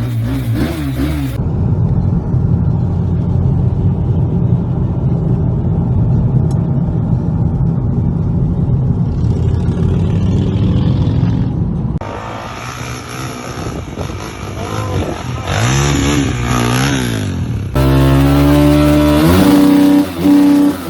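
Motorcycle engine running and revving across several spliced clips, with sudden cuts between them and the revs rising and falling a couple of times about 15 to 17 seconds in.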